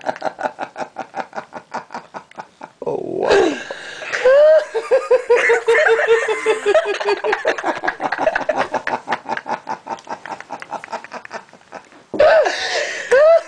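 A person laughing hard in long runs of quick, rhythmic pulses, with a higher, pitched stretch of laughter about four to seven seconds in.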